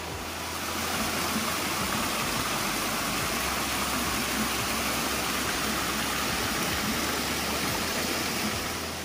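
Small woodland stream cascading over rock ledges close by: a steady rush of running water, growing louder about half a second in.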